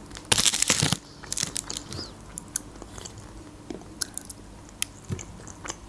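Close-miked eating of baked lasagna: a loud noisy mouthful taken off a fork just under a second in, then chewing with scattered small mouth clicks.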